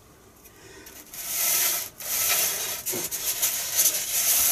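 Two white foam wing halves slid by hand across a wooden tabletop, a scraping rub of foam on wood and hands on foam. It starts about a second in and comes in a few long strokes, with a short break near two seconds.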